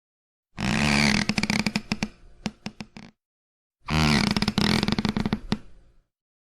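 Wooden floorboard creaking under weight, twice. Each creak starts as a drawn-out groan and breaks up into a run of separate ticks and cracks as it dies away.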